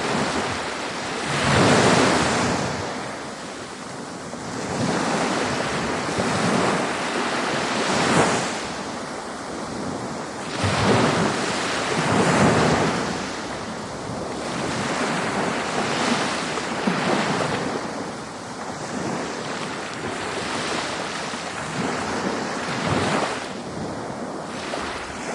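Ocean waves breaking and washing in, a full rush of surf that swells and subsides every few seconds.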